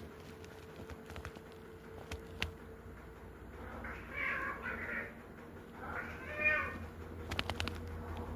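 Domestic cat meowing: a pair of short meows about four seconds in, then a longer meow a second or so later, with a few sharp clicks near the end.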